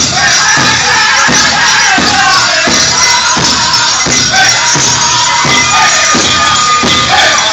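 Powwow drum group playing a prairie chicken dance song: steady big-drum beats about one and a half a second under high-pitched group singing, with the jingle of dancers' bells.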